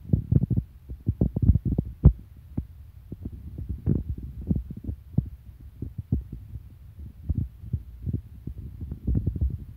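Calico cat purring while being stroked: a low, throbbing hum with uneven pulses.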